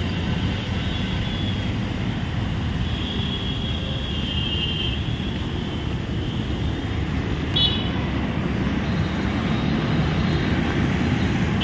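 Steady rumble of busy city road traffic, with vehicle horns sounding over it: a longer horn about three to five seconds in and a short honk about seven and a half seconds in.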